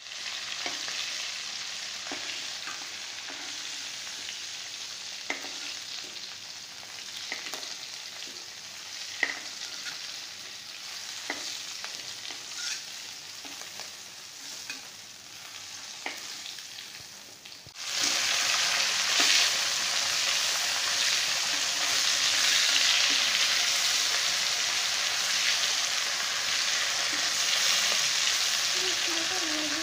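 Turmeric-coated fish pieces frying in hot oil in a pan: a steady sizzle dotted with small pops and clicks. About two-thirds of the way through, the sizzle suddenly becomes much louder and fuller.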